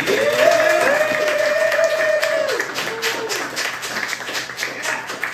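Audience applauding and cheering after the song ends, with one long high whoop over the first two and a half seconds; the clapping thins out toward the end.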